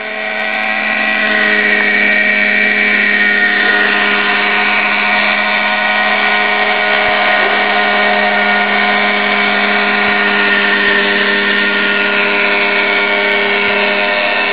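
Tiger 50 RC helicopter's nitro glow engine and rotors running at a steady pitch in a low hover, an even, unbroken buzz.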